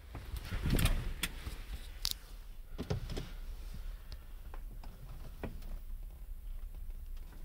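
Scattered clicks and knocks of someone settling into a car's driver seat and handling the controls before starting, the loudest a thump about a second in.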